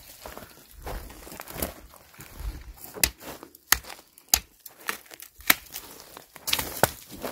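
Footsteps crunching over dry leaves, twigs and pine needles on a forest path, with irregular sharp crackles.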